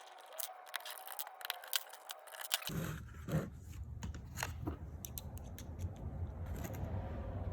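Clicks and scrapes of a security-bit screwdriver working the screws out of a plastic pressure washer gun housing, with the plastic being handled. A steady low rumble comes in abruptly about a third of the way through.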